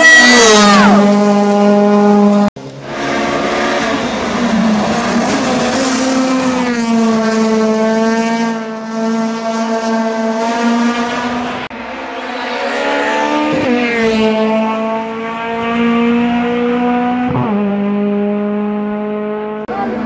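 Honda Civic race car's K20 four-cylinder engine revving hard as it passes close by at speed. The engine note holds high and drops briefly a few times as the car changes up through the gears.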